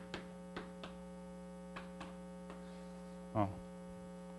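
Steady electrical mains hum from the lecture-hall microphone and PA, with a few faint taps of chalk on a blackboard during the first two seconds.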